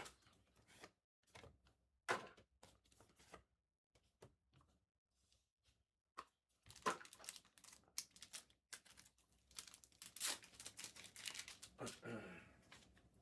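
Plastic wrapping on trading-card boxes or packs being torn open and crinkled by hand. A few light clicks and rustles come first, then steady tearing and crinkling from about halfway through, with a brief squeaky rip falling in pitch near the end.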